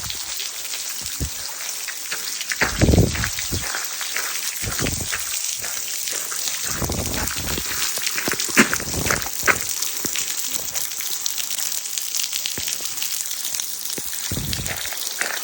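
Steady rain falling, a dense even hiss, with irregular low thumps and rumbles over it, the strongest about three seconds in.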